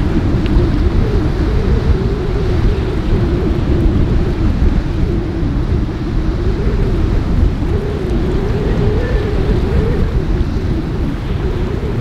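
Strong wind buffeting the microphone with a low rumble, and a boat engine running underneath, its pitch wavering up and down.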